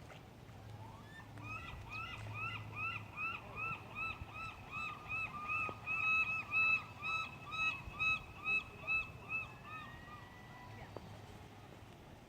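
A gull giving its long call: a long series of repeated, evenly spaced squealing notes, about three a second, building up and then fading out.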